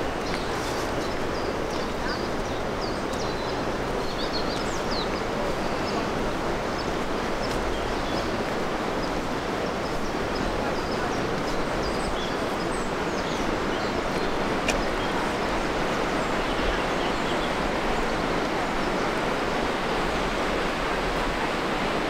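Steady rushing of running water, with a few short bird chirps in the first few seconds.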